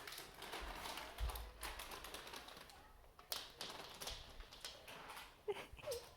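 A cat crunching kibble: a run of small, irregular clicks and crackles. Near the end come two brief pitched sounds.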